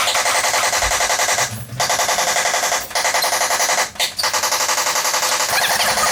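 Loud, very fast rattling of rapid repeated taps, like a small machine running. It stops briefly three times.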